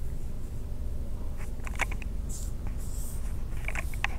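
Steady low rumble inside a car cabin, with fingers rubbing and tapping on the phone right over its microphone: scattered short scrapes and clicks, and a brief hiss about halfway through.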